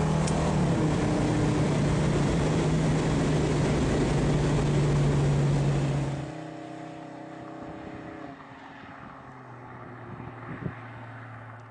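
Buick 455 V8 pulling steadily at cruising speed, heard from inside the car with heavy road and wind noise. About six seconds in the sound cuts to a much quieter, more distant engine hum that fades further toward the end.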